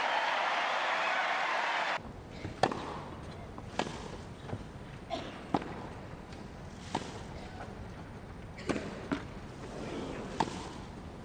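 A crowd cheering and applauding, cut off suddenly about two seconds in. Then a tennis rally on a grass court: sharp racket strikes on the ball and its bounces, about one every second, over a hushed crowd.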